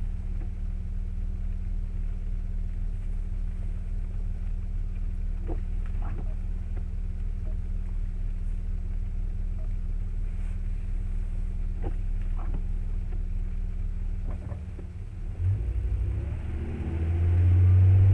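Car driving noise heard inside the cabin: a steady low engine and road rumble. About fifteen seconds in, the pitch shifts and the sound grows louder as the car accelerates.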